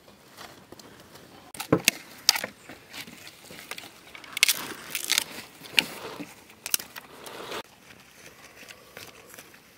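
Handling sounds of food preparation: a few sharp knocks about two seconds in, then a few seconds of rustling and scraping broken by sharp clicks.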